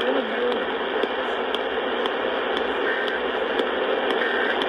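Steady radio static: an even hiss from a radio receiver, with faint ticks about twice a second.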